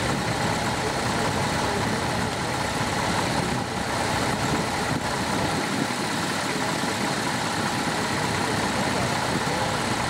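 Vintage tractor engines running steadily, pulling ploughs through stubble.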